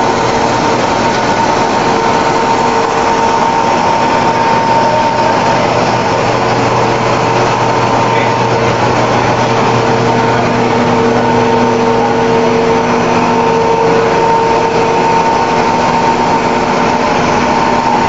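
Puffed corn snack production machinery running steadily: a loud, even motor noise with a steady hum and a whine above it.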